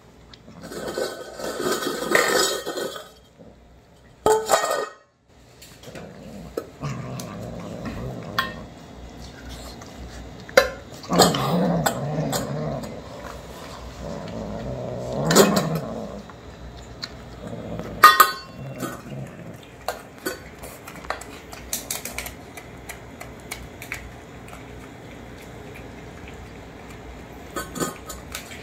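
Kittens eating wet cat food from stainless steel bowls: chewing and lapping, with sharp clinks as their mouths and the food knock the metal. Now and then a low growl while they eat.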